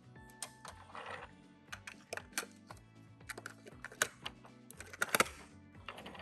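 Small plastic toy cars and their packaging being handled: irregular light clicks and taps, with short crinkly rustles about a second in and again about five seconds in, over background music.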